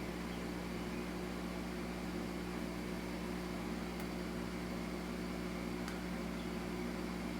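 Steady low hum with an even hiss, with two faint ticks about four and six seconds in.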